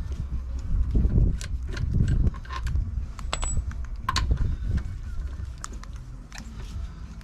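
Tools or car parts being handled: scattered clicks and light metallic clatter over low thumps and rumbling.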